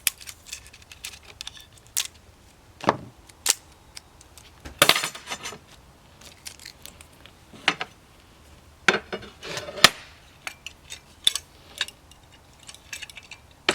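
Metal parts of an edging mill clinking and knocking as they are handled and adjusted during assembly: a dozen or so scattered sharp clicks and knocks.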